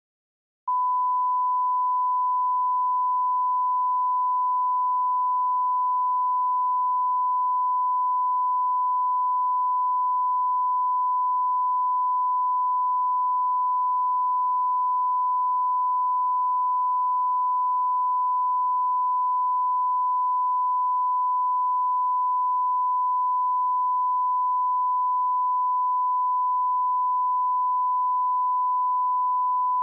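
A steady 1 kHz test tone: one pure pitch held unbroken, starting abruptly about a second in.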